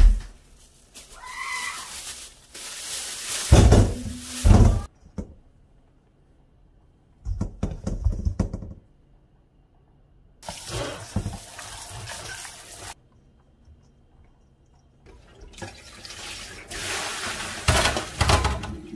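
Kitchen tap water running into a stainless steel sink and bowl in several spells, with a couple of heavy thumps about four seconds in. Near the end, apples tumble with a loud thump from the bowl into a metal colander under running water.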